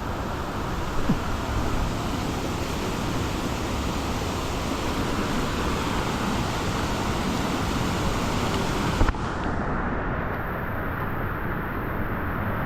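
Steady rushing noise of flowing waterfall water, with a single click about nine seconds in.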